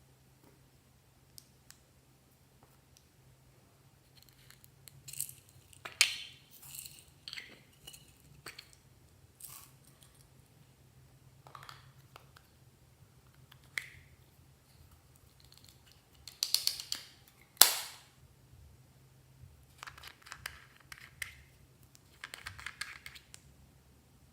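Slime being squeezed and poked by hand: irregular sticky squishes, crackles and sharp pops, with a loud cluster of pops and crackles about two-thirds of the way in.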